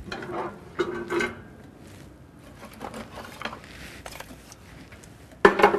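Latch of a small cast-iron wood stove turned and its iron door swung open: metal squeaking and clanking within the first second or so, then lighter knocks and clicks.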